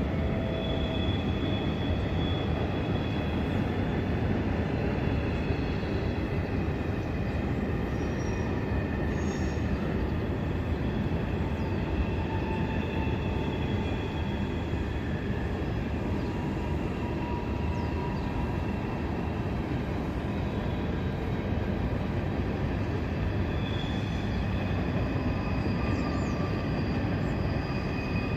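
CSX mixed freight train passing, its cars rolling steadily over the rails, with faint high wheel squeals coming and going.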